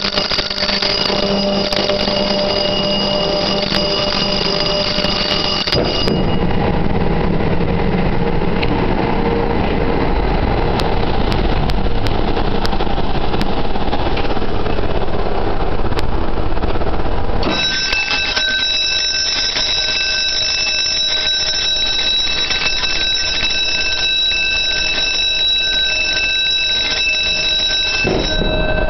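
Loud, steady machinery noise in a cruiseferry's engine room, with several steady high tones running over it. The tones drop out abruptly about six seconds in, and a different set of high tones sets in past the halfway point.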